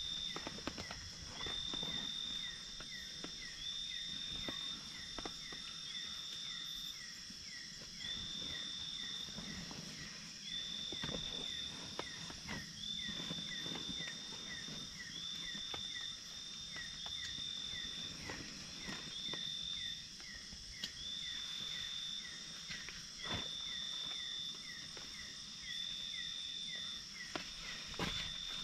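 Night insect chorus: a high trill switching on and off about every second over a steady row of chirps about three a second, with a constant high hiss of more insects. Close rustling and scattered clicks as gear is handled in a backpack.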